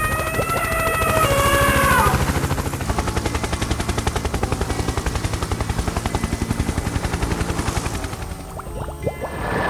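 A motor running with a rapid, even chatter, after a falling call of several tones in the first two seconds.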